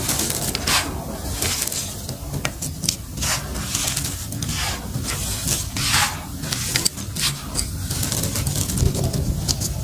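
Handfuls of dry, powdery grit poured from a hand onto a heap: a gritty hissing trickle that swells with each pour, repeated several times.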